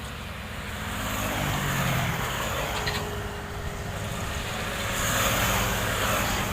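Diesel engine of heavy road-construction machinery running, with a steady low hum that swells about two seconds in and again about five seconds in, as if the machine works closer or under more load.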